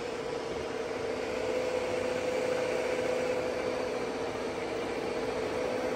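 WMW-Heckert dual-spindle universal milling machine's vertical spindle running steadily at 710 RPM without cutting, a steady hum with a clear tone through it that grows a little stronger after about a second and a half.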